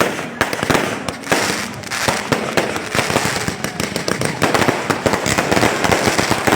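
Fireworks going off: a dense, rapid stream of overlapping bangs and crackles, many pops each second.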